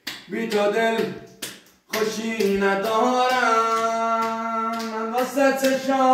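A single voice singing, short phrases at first and then long held notes that slowly shift in pitch, with a few sharp finger snaps among them.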